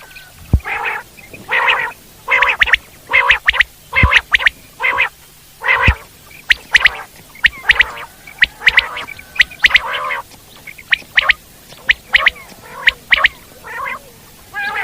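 Common quail (Coturnix coturnix) calling over and over: short, harsh calls following each other at about two a second. A few sharp clicks fall among them.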